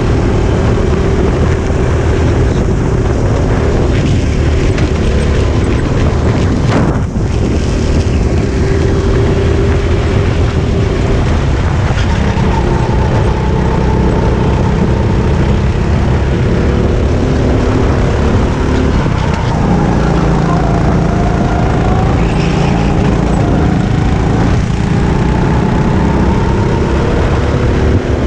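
Onboard sound of a Sodi RT8 rental go-kart's engine running hard in a race, its pitch rising on the straights and dropping each time it lifts off for a corner, over a steady rush of noise.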